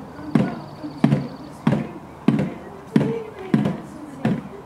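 A drum struck in a steady beat, about three beats every two seconds, keeping time for a group singing along.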